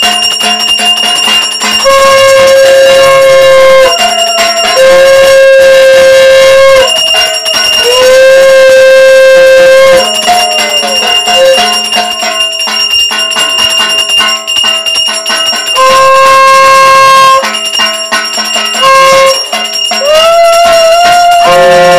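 A brass hand bell rings continuously during the arati while a conch shell is blown in about six long, loud notes of roughly two seconds each, some sliding up in pitch as they begin.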